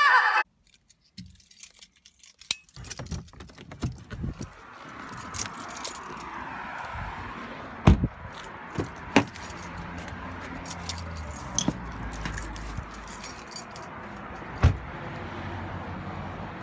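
A bunch of keys jangling while someone walks with a handheld phone, with small clicks throughout and a few louder knocks that could be footsteps on wooden deck boards.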